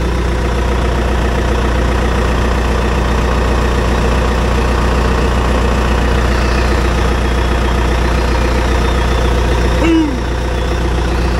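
John Deere crawler dozer's diesel engine idling steadily.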